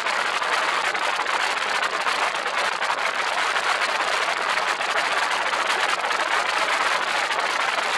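Steady rushing wind noise on the microphone of an open craft moving fast over the water, with no clear engine pitch and no change.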